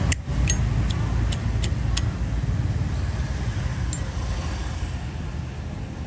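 A motor vehicle's engine running close by, a low rumble that slowly fades. Over it, a quick run of sharp metallic clicks in the first two seconds and one more about four seconds in, from brass Zippo lighters being handled.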